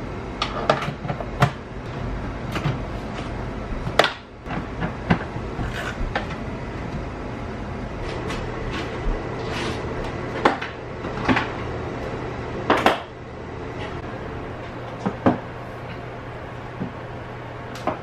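Scattered, irregular clicks and knocks of a hand tool against the metal and plastic parts of a Tesla Model S door, as its door handle is adjusted and the handle's mounting screws are snugged down, over a steady low hum.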